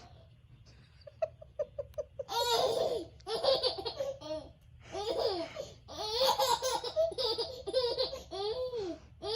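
A baby laughing: a quick run of short laughs about a second in, then repeated longer bursts of laughter.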